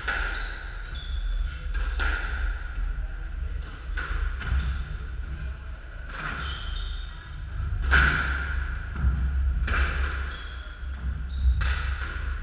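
Squash rally: the ball cracking off rackets and the walls about every two seconds, each hit ringing in the enclosed court. Short high squeaks of shoes on the wooden floor come between hits, over a steady low hum.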